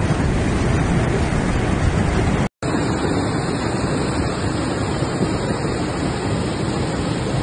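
Muddy floodwater rushing in a flash-flood torrent: a loud, steady rushing noise. It cuts out abruptly for a moment about two and a half seconds in, then carries on.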